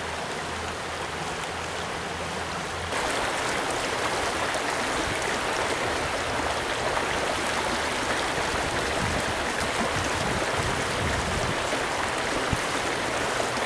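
Fast stream water rushing over rocks in a riffle, a steady rush that gets a little louder about three seconds in.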